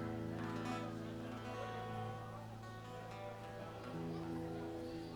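Live rock band guitar intro: notes ring out over a held low chord, and the chord changes about four seconds in.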